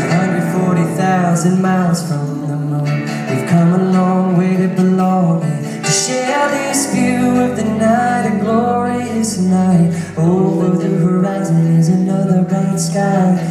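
Live band playing an acoustic pop song: acoustic guitar, cello, keyboard and drums, with singing voices over them.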